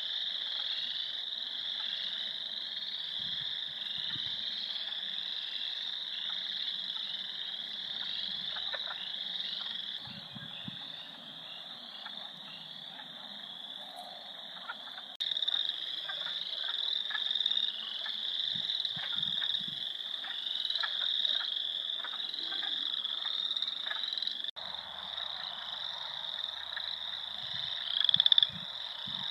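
A dense chorus of many frogs calling at once in a spring wetland, overlapping high trills blending into a continuous din. Scattered lower croaks sound through it. The chorus briefly swells louder near the end.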